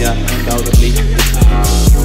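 Backing music with a heavy bass line and a steady kick-drum beat.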